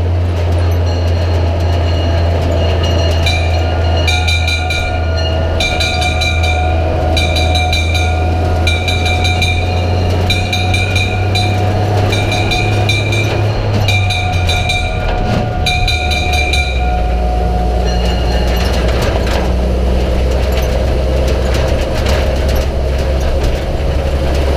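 Brass bell of a pre-war Leyland Metz turntable ladder fire engine rung by hand in repeated quick bursts, about a second each, over the steady running of the engine. The ringing stops about two-thirds of the way through, and the engine note drops soon after.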